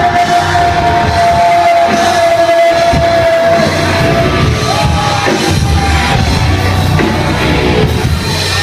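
Loud live concert music, with a long held high note through the first three and a half seconds and another starting about five seconds in.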